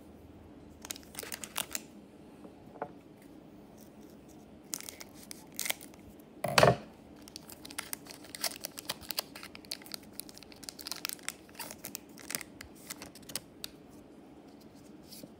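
Foil booster pack crinkling as it is handled and torn open, the loudest tear a little before halfway through. Then a run of quick crinkles and clicks as the trading cards are pulled from the wrapper and handled.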